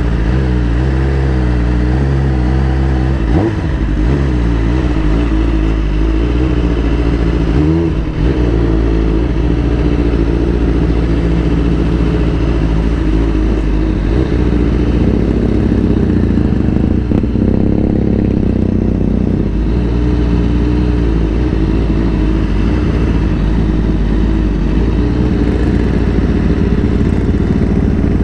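Honda CBR1000RR-R's inline-four engine running on the move, its pitch rising and falling with the throttle, with two brief dips, a few seconds in and around eight seconds in.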